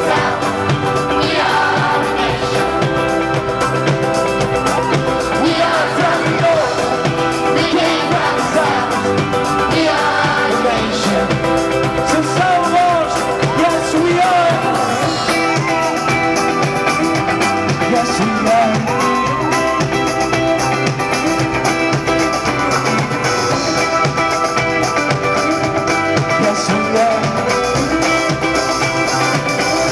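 Live band music: strummed acoustic guitar and keyboards with wordless singing over them.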